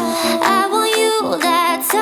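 Background pop music with a steady repeating bass line and a wordless vocal or synth melody.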